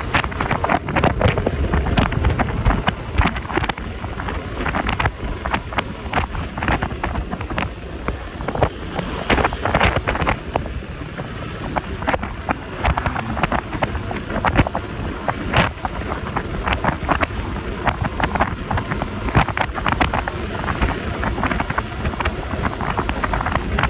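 Wind buffeting the phone's microphone with many short crackles, over the steady road and engine noise of a Yamaha Lexi LX 155 scooter on the move.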